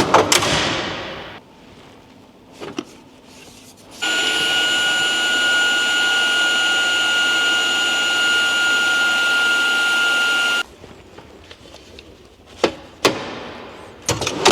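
Small electric air pump inflating a self-inflating sleeping pad, starting about four seconds in and running steadily for about six and a half seconds with a constant high whine, then cutting off suddenly. Scattered knocks and clicks of the pad and gear being handled come before and after.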